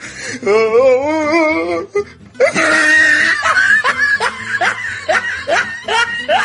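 Comic music track with a laughing voice: a wavering held tone for about the first two seconds, then a string of short rising whoops about twice a second.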